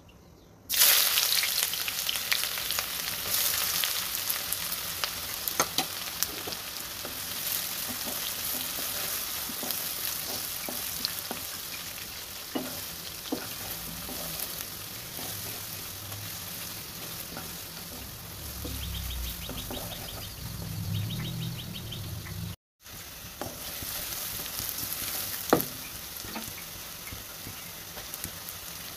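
Sliced onions hit hot oil in a wok and sizzle all at once about a second in. They keep frying with a steady hiss that slowly eases, with the scrapes and knocks of a wooden spatula stirring them.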